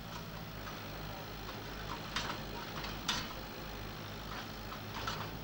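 Farm tractor's diesel engine running steadily at low revs while it manoeuvres a trailer, with a few sharp clicks about two and three seconds in.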